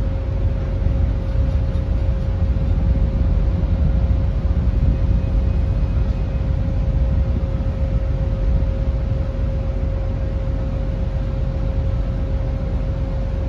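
Ship-board ambience: a steady low rumble of machinery and wind, with a constant hum held at one pitch.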